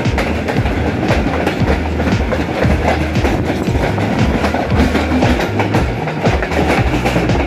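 Pakistan Railways passenger coaches passing close alongside on the next track: a loud, steady rumble with rapid clickety-clack of steel wheels over the rail joints.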